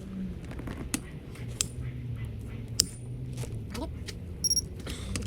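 Scattered metallic clicks and clinks of a wrench working the cylinder head bolts through their final 90-degree angle turn, with a short high beep about four and a half seconds in.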